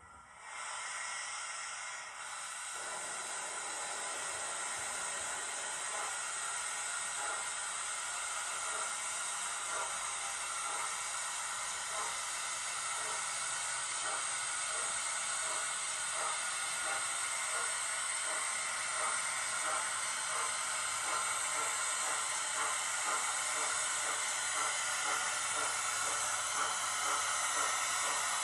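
Sound-fitted model Black 5 steam locomotive on a DCC layout, its decoder's loudspeaker playing a steady steam hiss with regular exhaust chuffs, about two a second, that come through more clearly a few seconds in.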